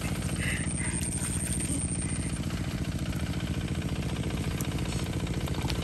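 A machine running steadily with a rapid, even low pulse. A thin high whine sits over it for the first couple of seconds.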